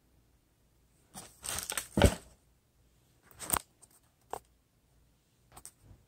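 Tissue paper and a cardboard shoebox rustling and crinkling as the shoes are handled and shifted in the box. It comes in a few short bursts, the loudest about two seconds in.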